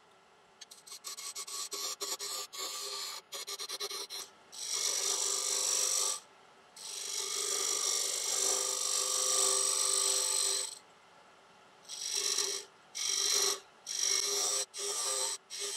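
A turning tool cutting a spinning tigerwood box blank on a wood lathe, rounding over its outside. It makes a run of quick short scraping cuts, then two long shearing hisses, then several shorter cuts near the end, over the lathe's steady hum.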